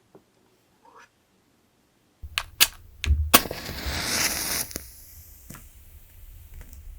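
Wooden-wick candle crackling: a few sharp pops a little after two seconds in, with a hiss for about a second and a half that then fades.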